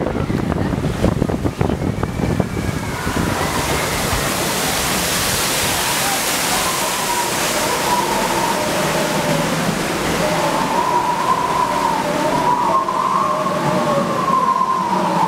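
Water rushing along a log flume channel beneath a moving log boat, with wind buffeting the microphone for the first two or three seconds. From about ten seconds in, a wavering tone sounds over the steady rush of water.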